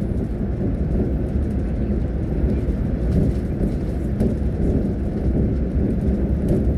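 Steady low road and engine rumble heard inside a moving bus cabin on the highway, with an occasional faint tick or rattle.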